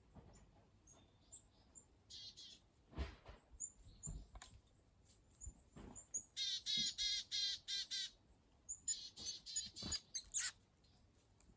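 Wild birds calling at a garden bird bath: short high chirps, then a quick run of about six harsh, buzzy calls just past the middle and more harsh calls near the end, with a few soft thumps in between.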